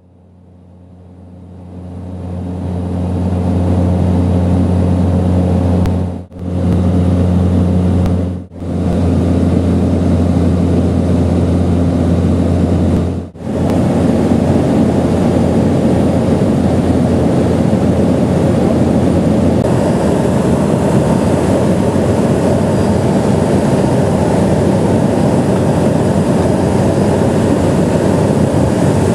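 Steady drone of a high-wing light aircraft's engine and propeller heard from inside the cabin. It fades in over the first few seconds and drops out briefly three times, about 6, 8 and 13 seconds in.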